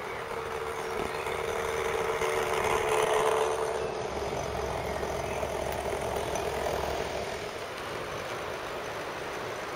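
Battery-powered model railbus running along garden-railway track: a steady electric-motor whine over a rolling, rushing noise that grows louder to about three seconds in. The whine drops away shortly after, and the rushing noise eases off near the end.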